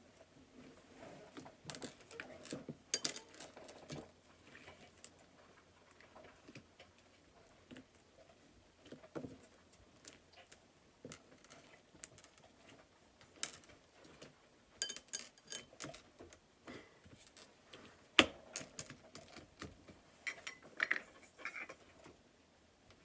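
Super sticky slime being squished and pulled apart by hand, making irregular small sticky clicks and pops, in clusters.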